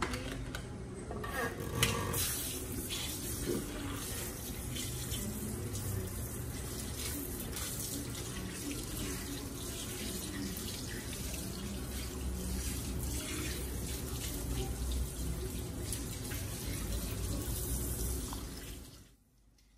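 Handheld sink sprayer rinsing bare feet over a washbasin: a steady rush of spraying and splashing water that stops abruptly near the end.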